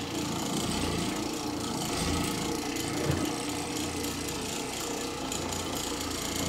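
Oreck orbital floor machine running steadily with a low hum, its pad scrubbing carpet during very-low-moisture cleaning.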